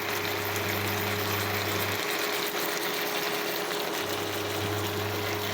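Steady machine hum over a constant hiss. A deeper hum cuts out about two seconds in and comes back about two seconds later.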